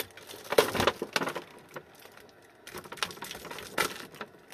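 Plastic wrapping being pulled and peeled off a battery pack, crinkling and crackling in two bursts, about half a second in and again around three seconds in.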